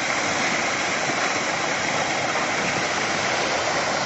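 Rockslide coming down a steep hillside onto a road: loose rock and debris pouring down as one steady rushing noise, with no separate crashes standing out.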